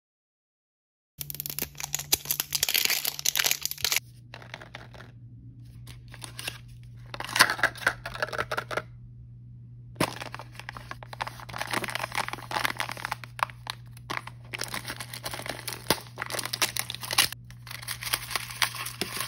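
Crinkling and tearing of plastic and paper packaging as an L.O.L. Surprise blind bag and ball are unwrapped and opened by hand, in rapid crackly bursts with a couple of short silent breaks.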